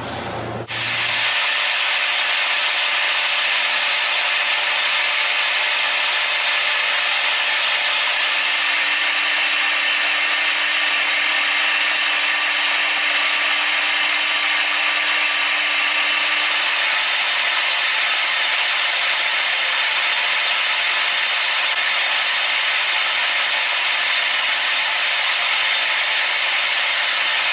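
Steady mechanical noise of a machine running, starting suddenly about a second in and holding an even level throughout.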